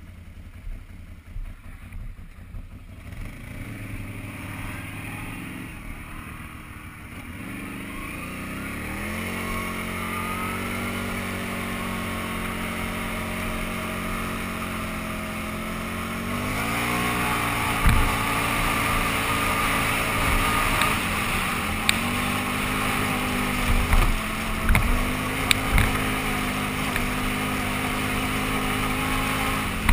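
Can-Am Renegade 800 ATV's V-twin engine idling, then pulling away, its revs climbing about a third of the way in and again just past halfway before settling into steady running. From then on there is wind hiss on the microphone and scattered sharp knocks.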